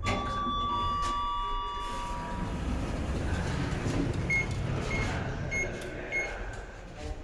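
Thyssenkrupp roped hydraulic elevator's signal: a ringing chime of several tones lasting about two seconds, then four short high beeps about two-thirds of a second apart, over a steady low rumble.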